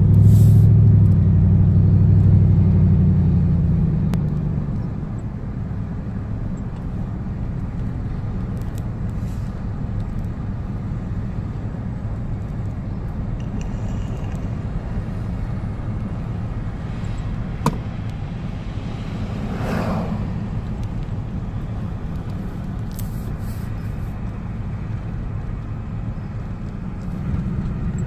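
Car driving, heard from inside the cabin: a low engine and road drone, louder for the first four seconds, then settling into a steady hum. A single sharp click comes about two-thirds of the way through.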